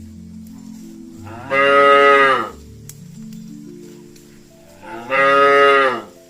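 Cattle mooing twice, each moo about a second long and dropping in pitch at the end, over quiet background music.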